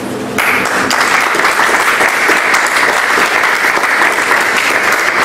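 Applause from a small group clapping their hands, breaking out about half a second in and carrying on steadily.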